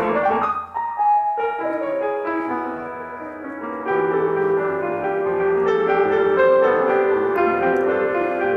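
Improvised piano playing: overlapping sustained notes and chords, thinning briefly near the start, quieter for a moment, then fuller ringing chords from about halfway through.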